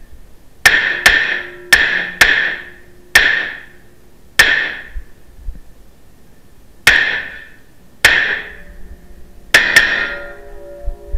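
Beretta CX4 Storm 9mm pistol-caliber carbine firing about ten shots in irregular strings, some in quick pairs, each crack echoing off the walls of an enclosed indoor range. Faint ringing tones linger after some of the shots.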